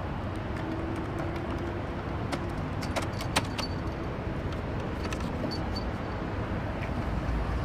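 Steady street traffic noise, with scattered light clicks and rattles and one sharper click a little over three seconds in.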